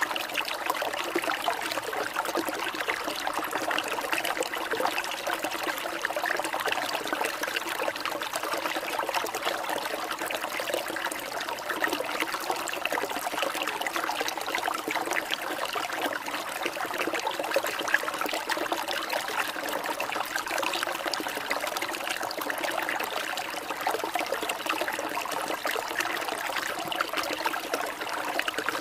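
Steady trickling, babbling water like a small stream, played as a relaxing water-sound track.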